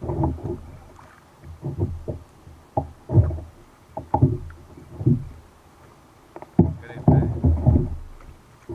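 Kayak being paddled: water sloshing with each paddle stroke, in uneven surges about once a second.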